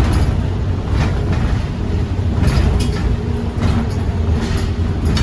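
Iveco Urbanway 18 Hybride articulated bus running: a steady low rumble with scattered rattles and clicks.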